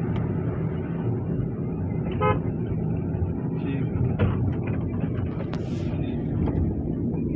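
Steady engine and road noise heard inside a moving Hyundai hatchback's cabin, with one short car-horn toot about two seconds in and a few light knocks later.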